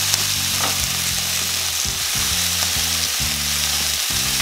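Chicken wings sizzling steadily in a frying pan on high heat, the fat rendering out of the skin as it crisps.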